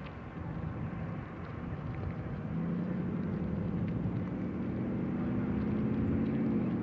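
An engine hum that grows louder and rises slightly in pitch, over a steady background rumble.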